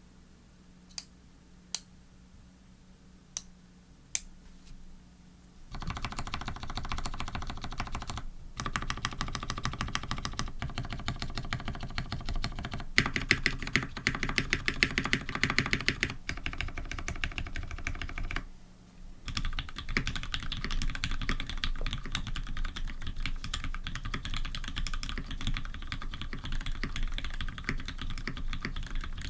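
A custom Tx87v1 keyboard with Cherry Retooled Black linear switches, a brass plate and GMK keycaps being typed on. It starts with four separate keystrokes, then fast continuous typing from about six seconds in, with a short break about two-thirds of the way through.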